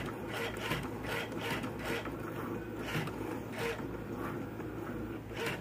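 Cricut Maker cutting machine cutting thin felt: its motors whir in short strokes, about three a second, as the tool carriage and mat shuttle back and forth.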